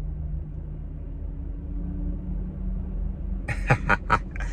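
Low steady hum of a parked car idling, heard inside the cabin. A few short clicks come near the end.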